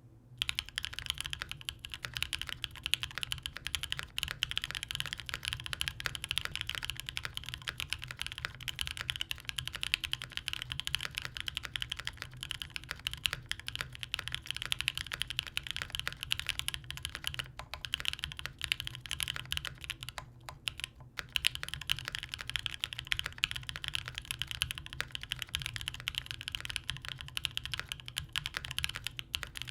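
Steady, fast typing on a Matrix Corsa custom mechanical keyboard: lubed (205g0) and filmed JWK Bluey switches with 50 g springs in a full aluminium plate with no foam, under GMK WOB doubleshot ABS keycaps. The key presses keep up without stopping apart from a couple of brief pauses a little past the middle.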